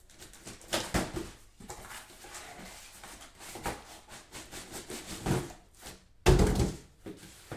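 Cardboard boxes being handled: rustling and scattered knocks, with one heavy thump about six seconds in.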